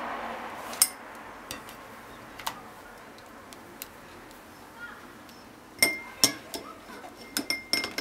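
Hard clinks and taps of kitchenware on a ceramic plate and stainless-steel counter: a few scattered knocks, then a quick run of ringing clinks in the last couple of seconds. A soft swishing of a silicone basting brush over sauced ribs fades out at the start.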